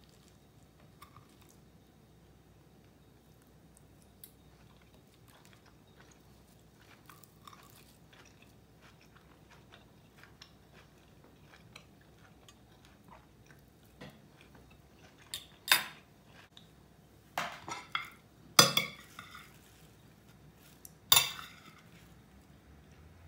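Close-up eating sounds: soft clicks of cutlery on a ceramic plate and quiet chewing. In the last third come four or five much louder, sharp scrapes and crunches, roughly a second apart.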